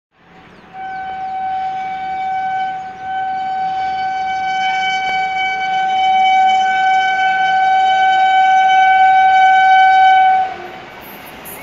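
Electric locomotive horn of an approaching Indian Railways passenger train, sounded as one long blast of a single steady pitch. It has a brief break about three seconds in, grows louder, and cuts off about ten seconds in.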